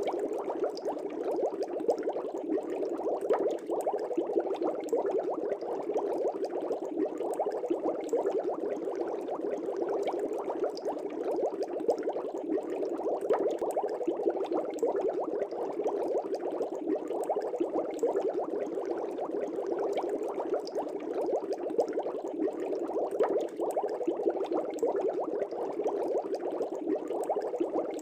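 Air bubbles streaming up through the water of a fish tank, a steady, dense bubbling with many small pops.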